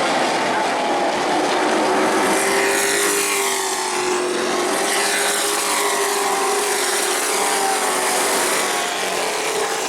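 Pro Truck racing engines running at speed on a short oval track, a loud, steady engine sound whose pitch rises and falls as the trucks go around.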